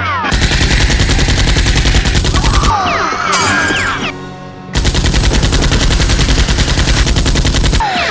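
Rapid automatic gunfire in two long sustained bursts with a short break between them, over background music.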